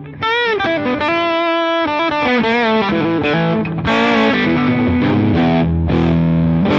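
Custom-built SG electric guitar played through a JOYO R21 overdrive pedal with its bass control turned right up, with a touch of reverb: single-note lead phrases with string bends and vibrato, moving to lower held notes in the second half.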